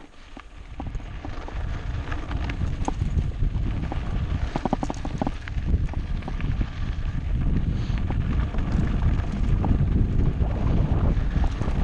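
Mountain bike rattling over a rough track, with irregular clicks and knocks, while wind buffets the helmet camera's microphone; the wind rumble builds over the first couple of seconds as speed picks up.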